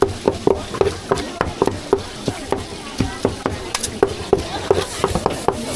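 Cleaver chopping meat on a wooden chopping block in a fast, steady run of sharp chops, about three to four a second.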